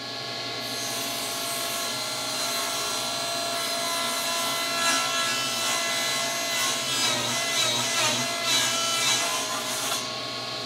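Table saw ripping a panel of particleboard-core maple plywood, with the blade cutting from about half a second in until near the end, when the cut stops and the saw keeps running. The cut wavers and dips in pitch in its second half: the panel is drifting off the fence at the back and pushing the blade sideways, the set-up for a kickback.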